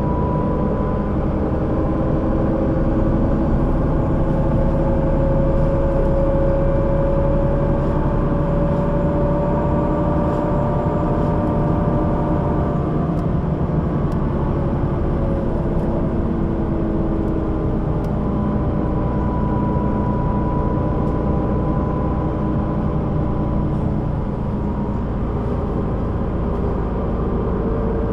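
Solaris Urbino 12 III city bus running with its diesel engine and ZF automatic gearbox, a steady drone whose tones rise and fall gently in pitch.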